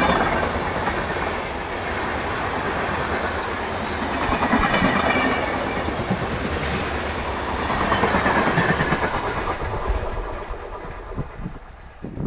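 Coaches of an express passenger train passing at speed through a station without stopping, wheels clattering over the rail joints in swelling waves. The clatter fades away near the end as the last coaches go by.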